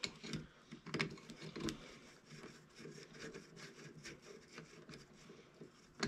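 Socket on a long extension being turned by hand on a cylinder hold-down bolt of a Rotax 493 two-stroke twin: a faint, quick run of small clicks and scrapes, with a few louder ticks in the first two seconds and a sharp tick at the very end.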